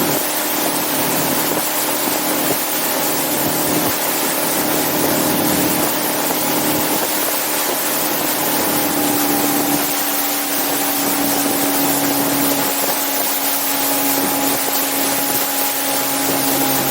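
Motorboat engine running steadily under way, over a loud rush of wind and water; the engine's note dips slightly about nine seconds in.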